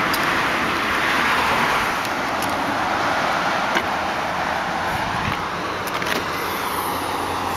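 Steady noise of the remote-started 2007 Chevrolet Impala running, with a few light clicks from the key fob and the trunk latch as the trunk is released.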